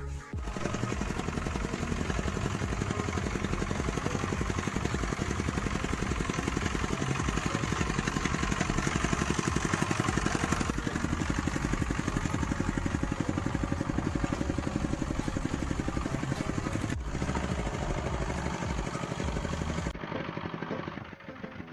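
A motor engine running steadily with a fast, even pulse, cutting off abruptly about two seconds before the end to a quieter background.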